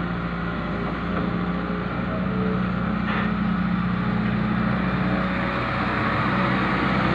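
John Deere 595D excavator's diesel engine running steadily under work, growing a little louder about a second in.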